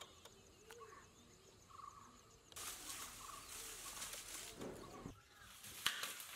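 Dry palm fronds rustling and crackling as they are picked up and handled, starting about two and a half seconds in, with a sharp snap near the end. Before that, faint bird calls.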